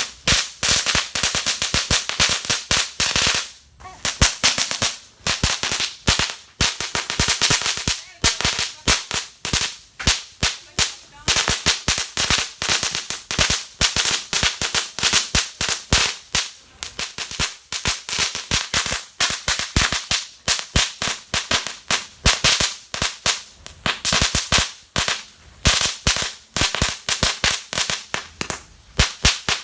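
A string of small firecrackers going off in rapid, dense volleys of sharp bangs, with short pauses now and then, as around four seconds in.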